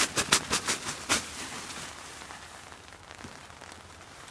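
A quick run of sharp rustles and clicks from the nylon tent being handled in the first second or so, then a steady hiss of rain on the tent.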